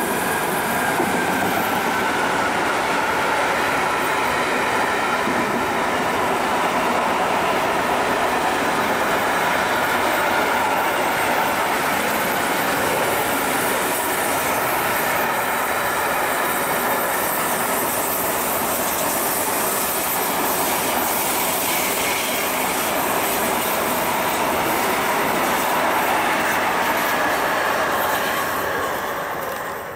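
Long intermodal freight train hauled by an electric locomotive rolling past: a steady, loud rumble and hiss of wagon wheels on the rails, with a faint whine in the first few seconds.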